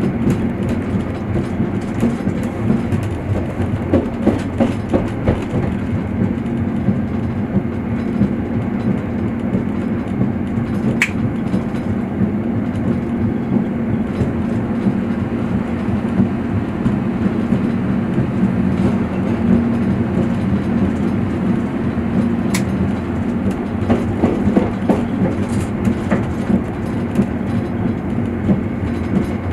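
Passenger train running steadily, heard from inside the carriage: a continuous low rumble of the wheels on the track. There are clusters of wheel clicks over rail joints about four seconds in and again near the end, and a couple of brief high squeaks along the way.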